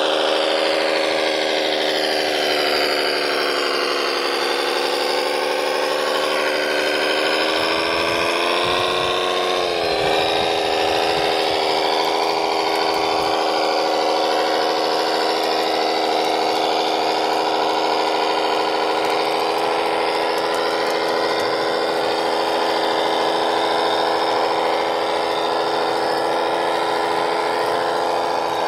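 Radio-controlled model dump truck's electric drive motors and gearbox whining steadily under load in mud. The pitch wavers, dips about ten seconds in, then holds level.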